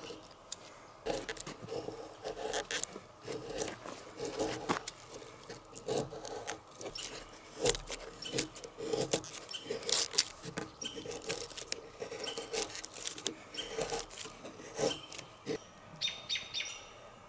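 Fixed-blade knife shaving curls down a split wooden stick to make a feather stick: a series of short scraping strokes, irregular, about one or two a second. A bird chirps faintly near the end.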